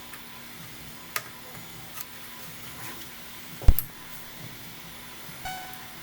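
Handling noise on a workbench: a few light clicks, then one sharp thump just before four seconds in, and a brief pitched tone near the end over a faint steady hum.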